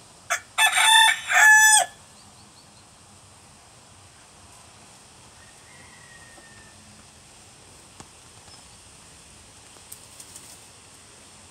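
A rooster crows once, about a second in: a short, loud crow in two parts whose last note drops in pitch. After it there is only faint background with a few small clicks.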